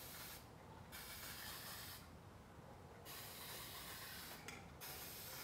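Aerosol spray-paint can hissing in several short bursts with brief pauses between them, spraying paint onto the water surface for a hydro dip.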